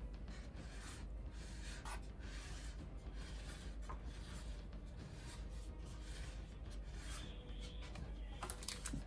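Faint, steady rubbing and scraping as the arc reactor's metal display stand is turned around on a round wooden board by hand, with a few light clicks near the end.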